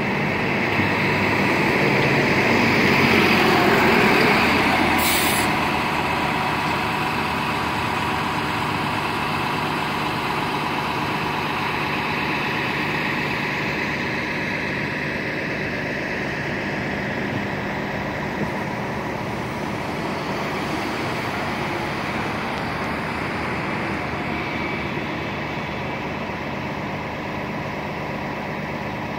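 New Flyer XDE60 articulated diesel-electric hybrid bus pulling past and driving away, loudest in the first few seconds. A short hiss of air comes about five seconds in, and the running noise then fades slowly as the bus moves off.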